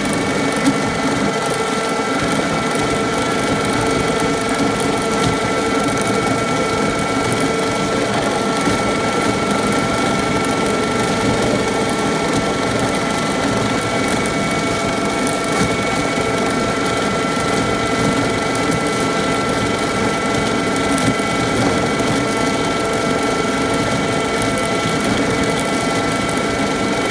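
Dazzini TCI260VH stone-cutting chain saw running steadily, its chain driven around the sprocket and cutting vertically down into soft, sandy stone, with a steady whine over the noise of the cut.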